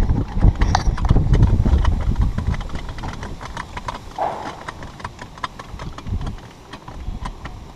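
Irregular small metallic clicks and knocks as a hand tapping machine is fitted and threaded onto a brass corporation stop, over heavy rumbling handling noise for the first two seconds or so.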